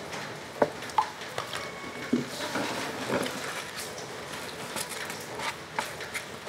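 Scattered light taps and clicks with soft rustling: playing cards being laid down and handled on a wooden bench, along with fried snacks picked from a plate. Three sharper clicks come within the first two seconds or so.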